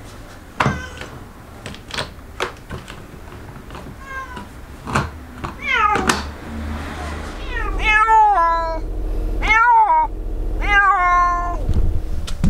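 Clicks and knocks of a pet carrier's lid being shut and pressed down over the first few seconds. A cat then meows loudly and repeatedly from inside the carrier, a string of long cries that fall in pitch, protesting at being shut in.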